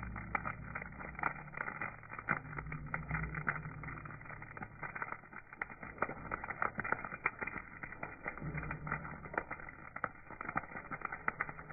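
Wood fire crackling, with irregular sharp pops several times a second, over a low rumble that swells and fades.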